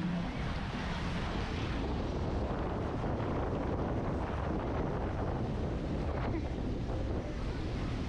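Wind buffeting the microphone, with steady wash of small surf waves breaking around the pier pilings.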